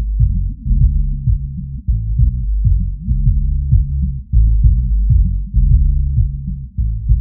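Bass-boosted electronic music, low-pass filtered so that only the deep bass remains: a pulsing sub-bass line with a repeating kick-drum beat and nothing above the low end.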